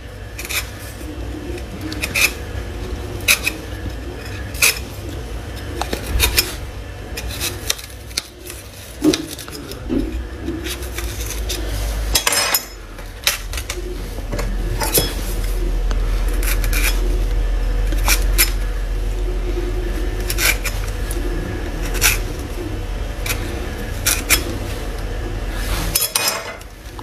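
A kitchen knife cutting and prying into a pomegranate's rind around the crown: scattered sharp clicks and scrapes of the blade against the peel, over a low rumble.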